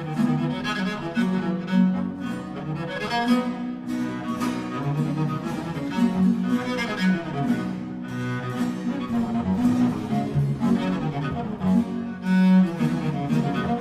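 Background music: a cello concerto, the solo cello playing over a string accompaniment.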